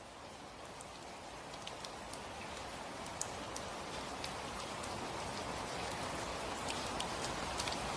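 Steady rain with scattered individual drops, fading in gradually and growing louder.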